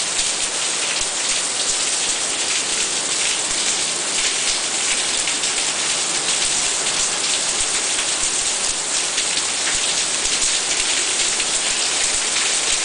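Rain pouring steadily onto a tiled terrace and clay-tiled roofs, a dense, even hiss that keeps up without a break.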